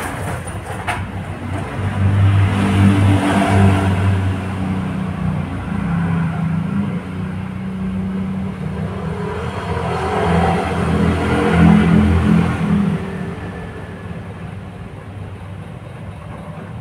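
A motor vehicle engine running close by: a steady hum that grows loud about two seconds in, swells again a little past the middle, and fades away near the end.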